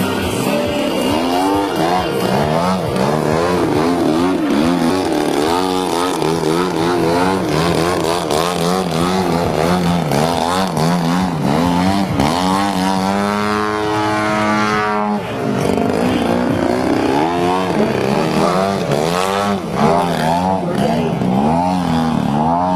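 Gasoline engine of a large RC aerobatic airplane in flight, its pitch rising and falling over and over. About halfway through it holds a steady note for a couple of seconds, then drops away suddenly.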